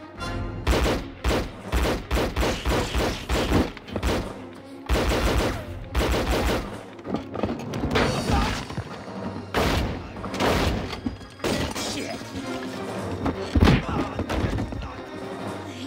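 Action-film soundtrack: repeated gunfire and sharp impacts over a music score.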